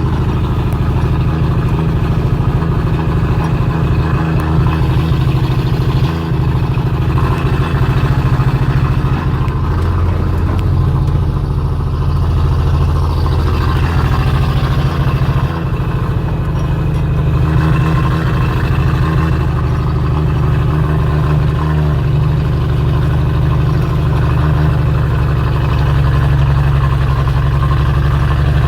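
A steady, loud low engine drone that holds its pitch with only small changes, like a motor vehicle running.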